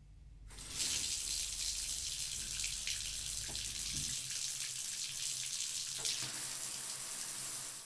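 Shower running, water falling and splashing steadily over a person's head; it starts about half a second in.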